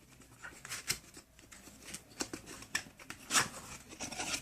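A product box being handled and opened: scattered light clicks, taps and rustles of packaging, the sharpest about three seconds in.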